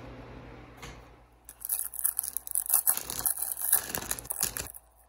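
A foil trading-card pack wrapper being torn open and crinkled, in a crackly rustle of about three seconds that starts around a second and a half in and stops abruptly.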